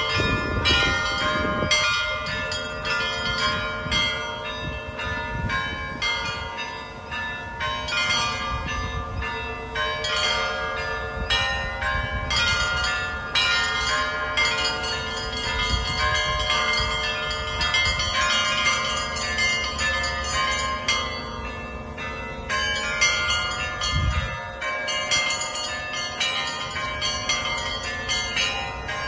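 Russian Orthodox church bells rung by one bell ringer. Small bells are struck in quick rhythmic patterns, several strokes a second, over the long ringing tones of larger bells. A deep stroke comes from a heavy bell near the end.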